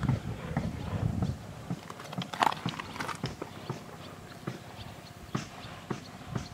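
Footsteps crunching on gravel, irregular steps with small clicks of stones, heaviest in the first second or so and then scattered.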